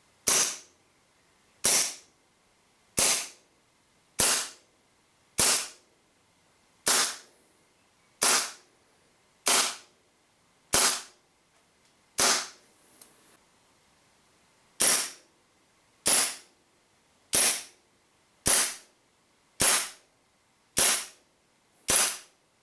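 WE M9 gas blowback airsoft pistols running on green gas, fired in slow single shots, each a short sharp report, about one every 1.3 seconds. Ten shots come from the standard M9A1, then a pause of about two and a half seconds with a faint knock, then seven more from the long M9L.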